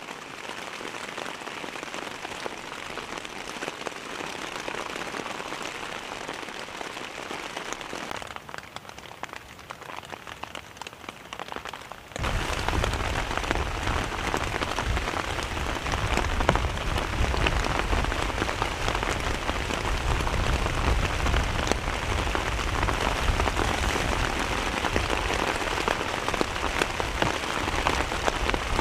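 Heavy rain falling steadily. About twelve seconds in it turns suddenly louder and fuller in the low end, and stays that way.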